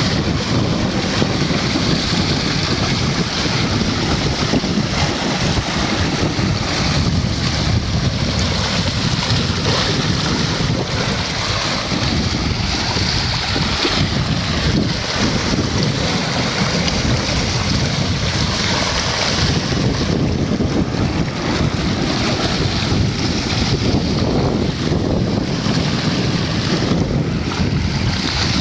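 Steady rush of churning water from a powerful whirlpool current, with wind buffeting the microphone.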